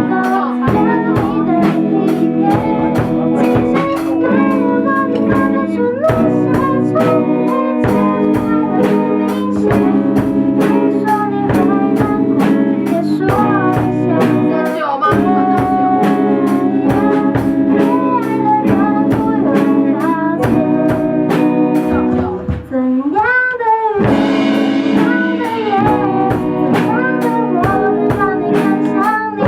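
A pop song performed live: a sung melody over sustained chords and a steady, even beat, with a swooping vocal slide a little past the middle.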